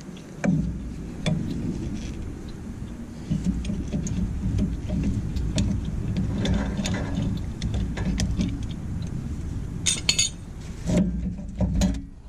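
Tools and brake parts clinking and knocking as they are handled during a brake pad change: scattered light metallic clicks, with a burst of sharper metal rattles about ten seconds in, over a steady low rumble.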